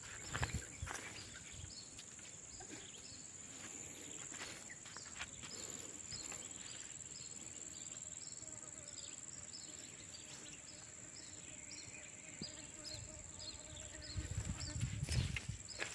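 Insects in a field: a steady high-pitched drone with short chirps repeating about twice a second. Louder thumps and rustling come in near the end.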